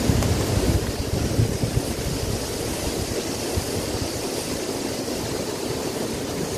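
Steady rush of river water spilling over small rock cascades, under a low, unsteady rumble that is strongest in the first two seconds.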